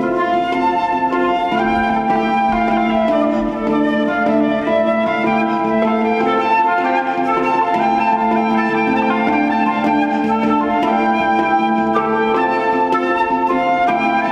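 A handpan (hang) played with the fingertips, its struck steel notes ringing, together with a transverse flute playing a slow melody of long held notes.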